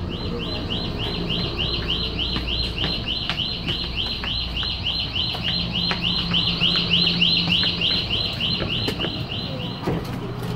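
Toilet alarm on a TEMU2000 Puyuma Express train sounding: a high electronic chirp repeating rapidly, about four times a second, that stops shortly before the end. Beneath it is the low rumble of the moving train.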